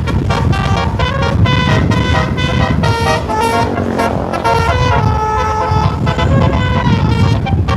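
Indonesian bus telolet horn, a multi-trumpet basuri horn, playing a fast melodic tune of short stepped notes with a longer held note about five seconds in, over the bus's low engine noise.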